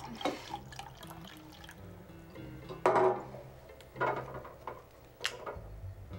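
Milk poured from a glass milk bottle into a glass in a few short splashing spurts, the loudest just before halfway. Soft background music with sustained notes plays underneath.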